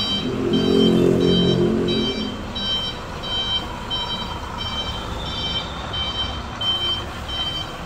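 Vehicle reversing alarm beeping evenly, about twice a second, over a low engine rumble that is loudest for the first two seconds or so.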